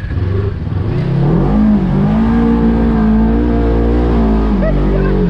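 Side-by-side UTV's engine revving up about a second in and held at high revs under load as the buggy climbs a steep sand bank out of a muddy track, then easing off near the end.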